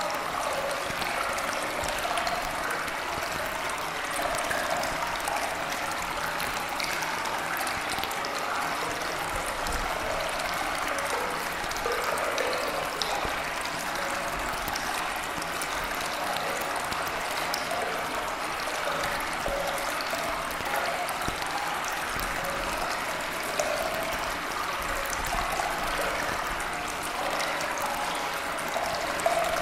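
Steady running water, like a flowing stream, an even unbroken wash with faint scattered droplet-like ticks.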